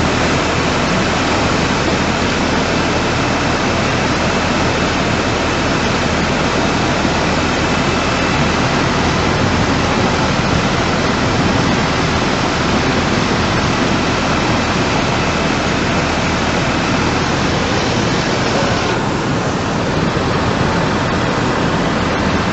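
Steady, loud rush of fast-flowing floodwater, with the hiss changing slightly near the end.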